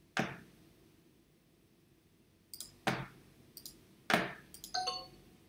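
Computer mouse clicking: a few sharp clicks, one just after the start and a small cluster about three to four seconds in.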